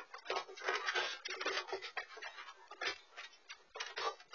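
Two dachshunds wrestling, picked up by a pet camera's microphone: irregular scuffling with quick clicks and taps in uneven bursts.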